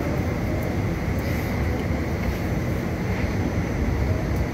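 Steady rumble and hum inside a Hong Kong Light Rail Phase III train car, with no breaks or sudden sounds.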